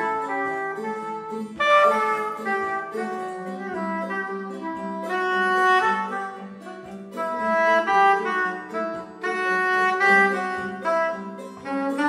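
Soprano saxophone playing a melody of held notes, accompanied by a plucked long-necked saz (bağlama).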